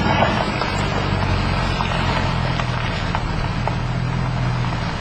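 An engine running steadily with a low hum, with a few faint ticks.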